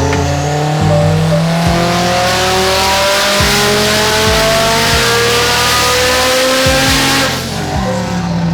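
Race car making a full-throttle drag-strip pass: a loud engine climbs steadily in pitch for about seven seconds, then cuts off abruptly as the driver lifts. Music with a heavy bass line plays underneath.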